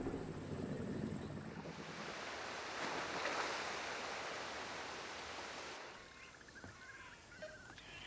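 A waterfall's rushing water, a steady hiss that swells about three seconds in and cuts off suddenly near six seconds. Forest birds chirping and whistling take over. A low rumble comes before the water in the first second or so.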